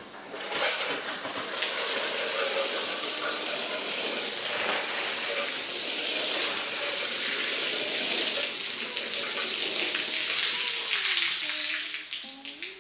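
Water jetting hard from a cleaning spray wand onto a wet tiled floor and a small rug, a steady loud hiss: the rinse stage of a rug wash.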